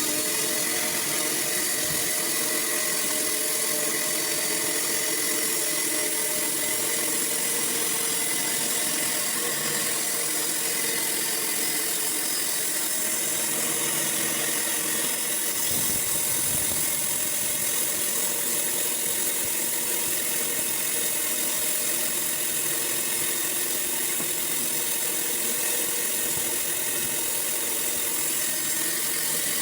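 Sawmill running steadily: a continuous machine hum with a strong high hiss that holds at one level throughout.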